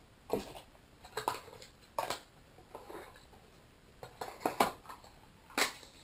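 Hands handling Raspberry Pi kit parts and packaging on a table: scattered light clicks, taps and rustles of plastic and cardboard, with a few sharper knocks about four and a half seconds in and again near the end.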